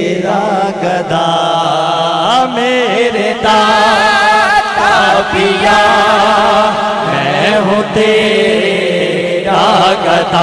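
Male naat reciter chanting a devotional praise song into a stage microphone, with long, sliding, ornamented notes over a steady low drone.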